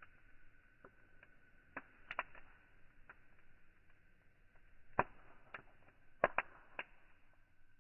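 Wood campfire crackling with sharp pops. A pair come about two seconds in and louder ones around five and six seconds, the loudest cracks sounding like gunshots.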